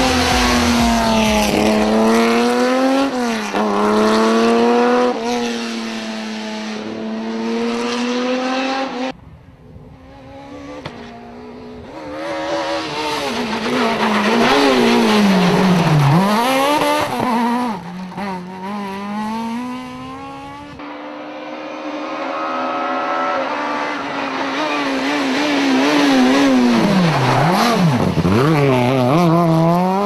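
Rally cars passing one after another at speed on tarmac: first a classic Porsche 911 rally car's engine revving up through its gears, then, after an abrupt cut about nine seconds in, a Renault Clio rally car's engine revving hard, its pitch dropping on braking and downshifts and climbing again as it accelerates away. About twenty-one seconds in a second Clio follows, braking and revving out the same way.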